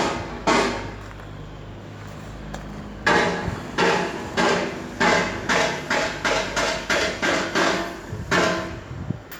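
Repeated sharp knocks, each with a short ring, in a run that starts about three seconds in and quickens from about one to about three a second; a couple of single knocks come first.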